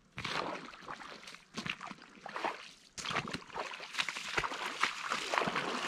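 Rubber waders sloshing through shallow marsh water, an irregular run of splashing steps that grows louder from about three seconds in as the walker comes closer.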